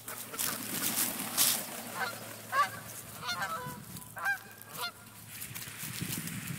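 Canada geese honking, a run of short calls from about two to five seconds in, as the flock flies off over the water.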